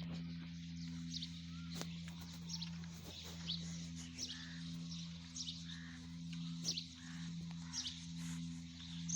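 Small birds chirping in short, repeated high chirps, about one or two a second, over a steady low hum.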